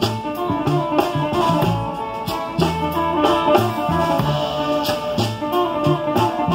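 A live band playing on an outdoor stage: guitar over a drum kit, with a steady beat.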